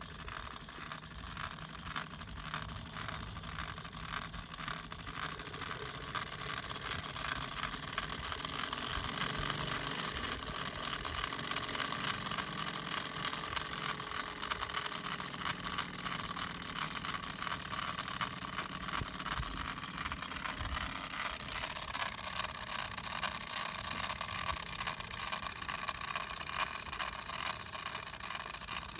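Wilesco miniature steam tractor engine running fast under steam: a rapid, even metallic ticking and rattling over a hiss, growing a little louder a few seconds in.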